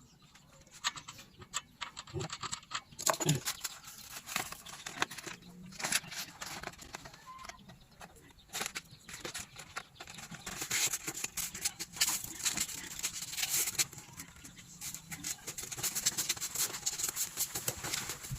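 Hand work on an old metal tea kettle: irregular scraping, rubbing and clicking, busiest in the second half.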